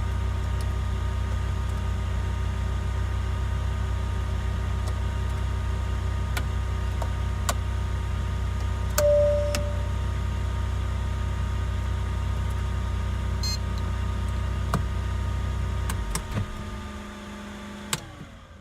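A steady low motor hum inside the SUV that stops about sixteen seconds in and dies away. A single short beep comes about nine seconds in, and a few faint clicks are scattered through.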